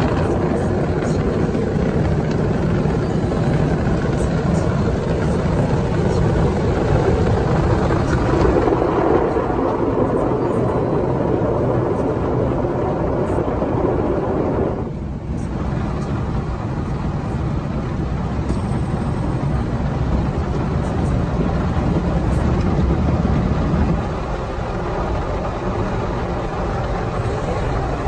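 Automatic gantry car wash machine working over a car, heard from inside the cabin: a loud, steady rush of water spray and machine noise. It dips briefly about halfway and settles a little quieter near the end.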